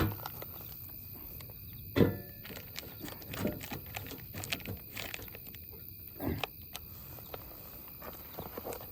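Night insects chirping steadily, with a few short knocks and clunks of handling, the loudest about two seconds in.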